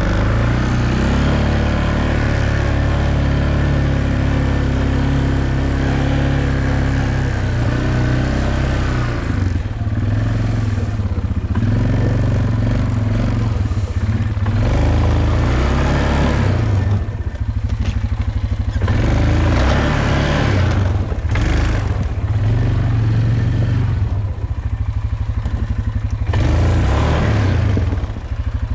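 Off-road vehicle's engine running and revving up and down as it drives the trail, with short bursts of clatter in the second half.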